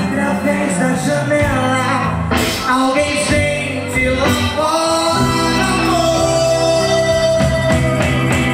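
Live MPB band playing, with a singer's voice carrying the melody over bass and keyboards; one long held sung note in the second half.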